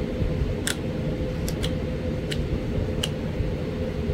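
About six small, sharp clicks, spaced irregularly a second or so apart, as tiny flakes are pressed off the edge of a Florida coral arrowhead to cut fine serrations. A steady low hum runs underneath.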